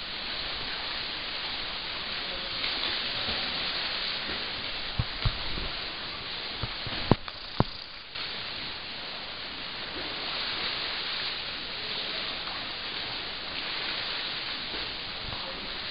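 Steady hiss of water churned by swimmers in a pool, with a few short sharp knocks between about five and eight seconds in.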